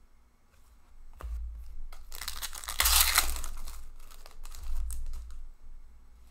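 An Upper Deck hockey card pack's wrapper being torn open and crinkled by hand, loudest for about a second and a half near the middle, with short ticks of cards being handled before and after.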